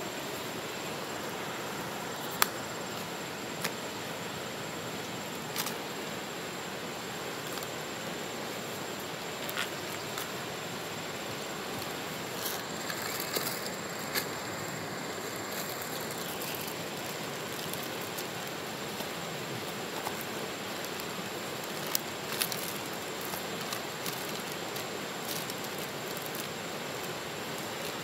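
A paper mailer and plastic bag being opened by hand: scattered sharp clicks and crinkles, with a stretch of plastic crinkling about halfway through, over a steady hiss.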